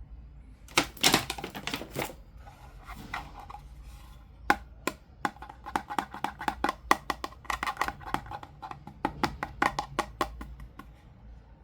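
Irregular series of sharp clicks and taps from small hard plastic toy pieces and packaging being handled, with a loud cluster about a second in and rapid clicking through the second half.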